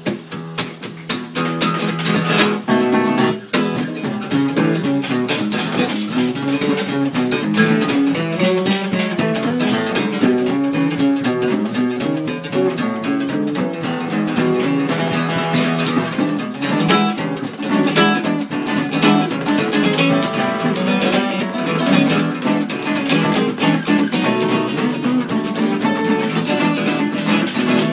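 Acoustic guitar playing an improvised blues, a steady run of picked notes and strums.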